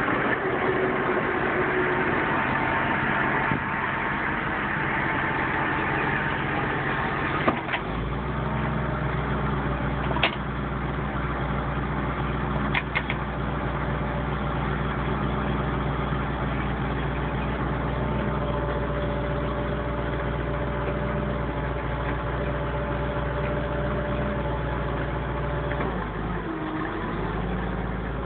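Truck engine idling steadily, its low hum growing stronger about eight seconds in and easing back near the end, with a few sharp knocks from the tow hitch being worked.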